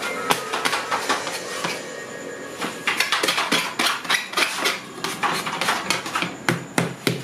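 Kitchen utensils clattering: a rapid, irregular run of sharp clinks and knocks, several a second.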